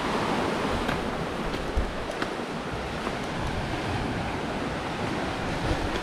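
Sea surf washing against a rocky shore, a steady rushing noise, with wind buffeting the microphone and a few faint clicks.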